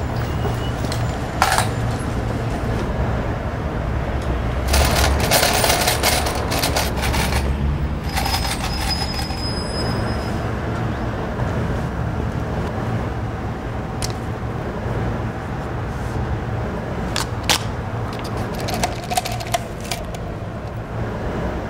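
Coins clinking and rattling in a handheld cup several times, over a steady low hum of street ambience.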